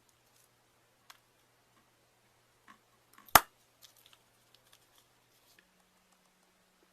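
A slime-filled balloon popping once with a sharp bang about three seconds in, with a few faint clicks and taps around it.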